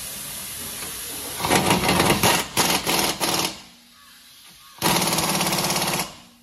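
Pneumatic impact wrench tightening a rear wheel hub nut: a steady hiss, then two runs of rapid hammering. The first run lasts about two seconds, starting about a second and a half in and coming in stuttering pulses. The second is a solid run of about a second near the end.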